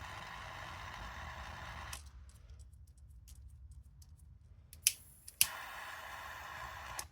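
Gas torch hissing as its flame melts the cut end of a nylon pull cord, shutting off about two seconds in. Near five seconds in come two sharp clicks half a second apart, then the hiss runs again for about a second and a half and stops with a click just before the end.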